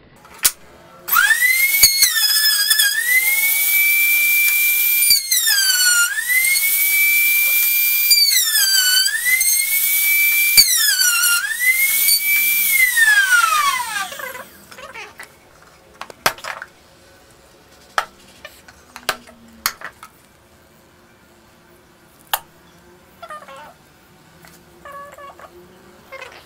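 Table-mounted trim router motor whining at high speed. Its pitch drops four times as the bit cuts into the edge of the board, then it is switched off and winds down, about 13 seconds in. After that come scattered light knocks and clicks.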